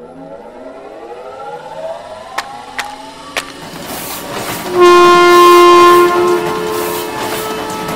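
Logo sound effect: several tones slide upward together, with three sharp clicks, then about five seconds in a loud horn-like chord of several steady notes blasts for about a second and carries on more quietly.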